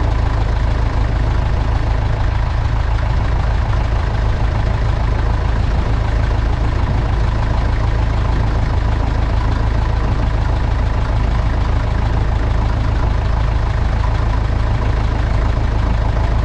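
1958 Massey Ferguson 35 tractor's engine idling steadily, heard from right underneath the tractor.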